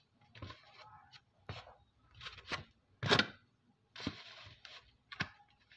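Fingers working food in a styrofoam rice box: a string of short scrapes and rustles, the loudest about three seconds in.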